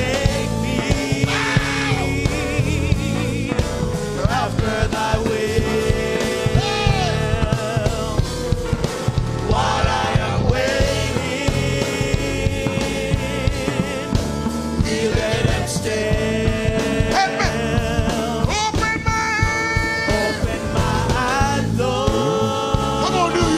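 Live gospel worship music: voices singing with vibrato over a band's steady accompaniment.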